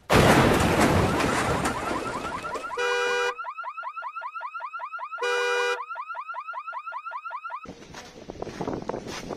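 A large ice-laden slab crashes down onto a parked car, a heavy rumbling impact lasting over two seconds. The car's alarm then goes off, alternating a steady multi-tone blare with fast repeating rising chirps, and cuts off sharply about three-quarters of the way through, giving way to wind noise with scattered clicks.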